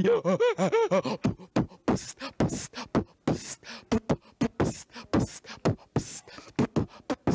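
A man beatboxing: a fast run of mouth-made kick, snare and hissing hi-hat sounds. It opens with a wavering sung vocal tone in the first second.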